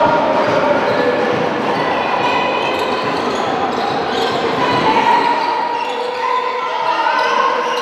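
Handball game sound on a sports-hall court: the ball bouncing on the floor, with players' voices calling out.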